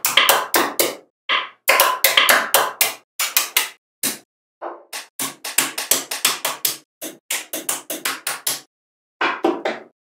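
Small magnetic balls clicking sharply against one another as they snap into place, in quick runs of several clicks a second broken by brief silent gaps.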